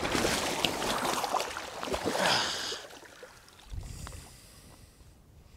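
Heavy splashing and sloshing of lake water as a wading angler stumbles and falls in. It is loudest for the first two to three seconds, then dies down to quieter movement in the water.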